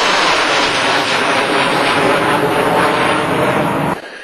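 Guided MLRS rocket motor burning as the rocket climbs away just after launch: a loud, steady rushing noise that cuts off suddenly near the end.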